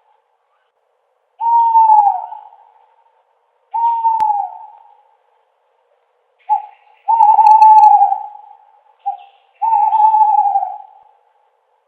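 An owl hooting: four long hoots, each about a second and falling slightly in pitch at the end, the last two each led by a short clipped note. Silence between them.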